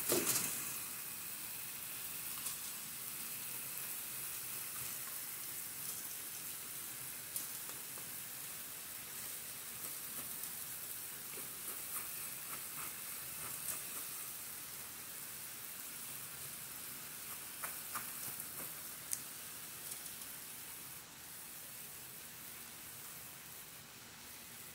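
Stir-fry vegetables sizzling steadily in a hot electric skillet, a little quieter near the end. A clatter right at the start and a few light clicks break into it.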